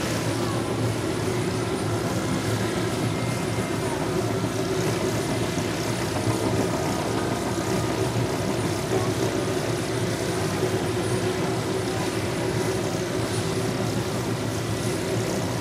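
Two turbine helicopters, a Hughes OH-6 Loach close by and a Bell UH-1H Huey beyond it, running steadily on the ground with their main rotors turning.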